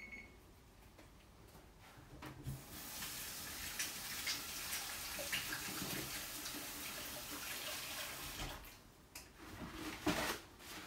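Kitchen faucet running into the sink for about six seconds, starting a couple of seconds in and shutting off near the end, with a few light clicks around it.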